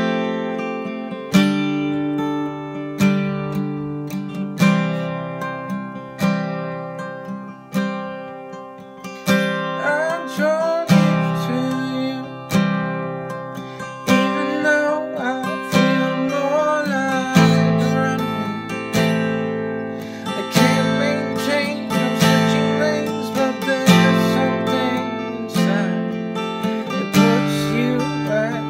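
Acoustic guitar with a capo on the neck, chords strummed in a steady rhythm with a strong stroke about every second and a half.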